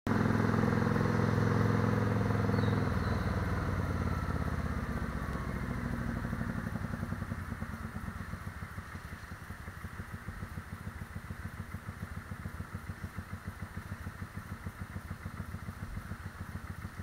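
Cruiser motorcycle engine running under way with wind rush, then easing off and getting quieter as the bike slows. From about eight seconds in it settles into idle, with an even, pulsing low beat.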